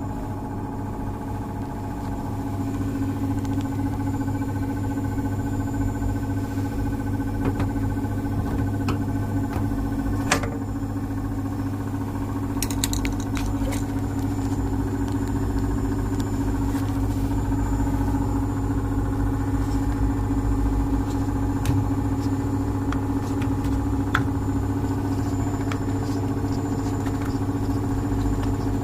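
Washing machine drain pump running with a steady hum, with a few light clicks and one sharp knock about ten seconds in.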